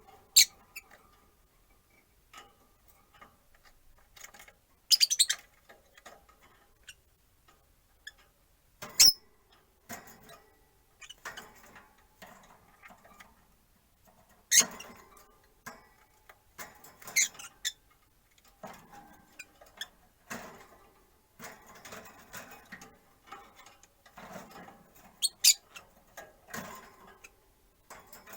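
Peach-faced lovebirds chirping: sharp, short high-pitched calls at irregular intervals, about half a dozen loud ones, with quieter chatter and clicking between.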